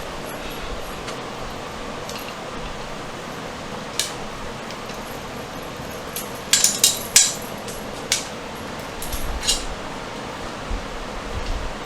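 Metal garage door opener hardware clinking and knocking as it is handled: one knock about four seconds in, a quick cluster of clinks a little past the middle, then a few more, over a steady background hiss.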